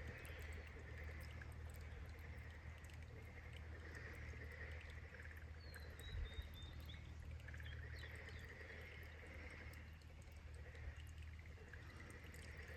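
Frogs calling faintly in pulsed bouts of about two seconds, several times over, with a few short bird chirps about five seconds in and a low steady rumble underneath.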